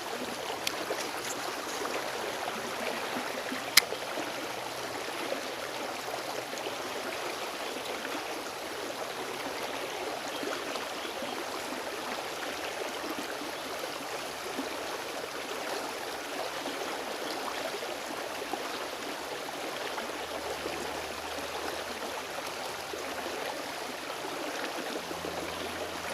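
Shallow stream water flowing and babbling steadily over its bed. A single sharp click comes about four seconds in.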